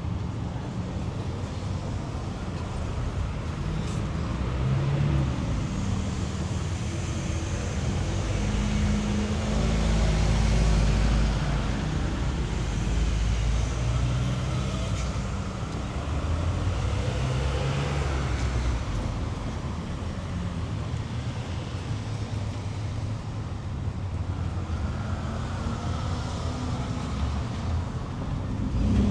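City street traffic: motor vehicles running and passing, a continuous low engine hum that swells and fades several times, loudest about a third of the way in and again a little past the middle.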